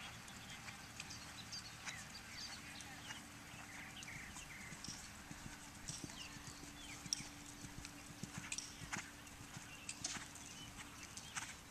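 Faint hoofbeats of an Oldenburg horse moving over the sand footing of a dressage arena, an irregular run of soft knocks.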